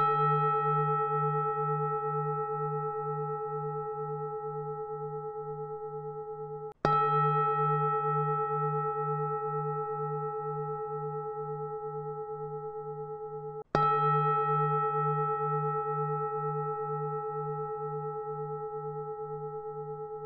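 A Buddhist bell is struck three times, about seven seconds apart. Each stroke rings on in a deep, sustained tone with a slow wavering beat and fades gradually.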